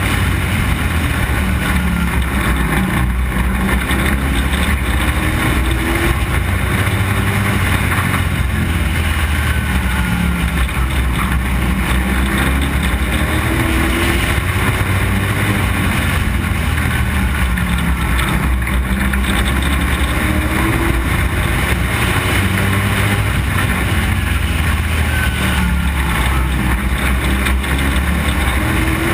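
Street stock race car's engine running hard at racing speed, heard loud from on board. The pitch climbs repeatedly, every several seconds, as the car accelerates out of each turn.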